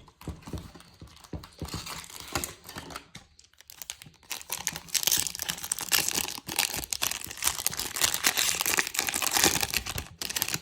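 Foil wrapper of a Topps Chrome Jumbo baseball card pack being torn open and crinkled, a dense crackling that gets louder about halfway through.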